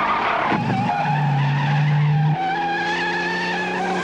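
Film soundtrack of a pickup truck driving on the road: a wavering high whine runs over low sustained synthesizer-like tones that change pitch in steps, about a second in and again about two and a half seconds in.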